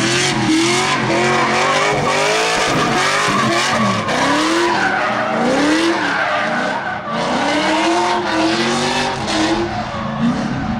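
Drift car sliding with its tyres screeching, the engine revving up and falling back again and again, about once or twice a second, as the driver works the throttle.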